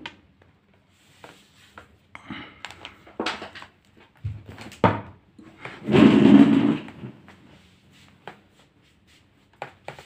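Handling noises on a laptop workbench: scattered clicks and knocks of tools and plastic parts, with one louder, longer noise lasting about a second near the middle.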